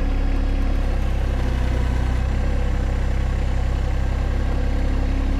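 John Deere 1025R compact tractor's three-cylinder diesel engine running steadily at an even speed, with no revving.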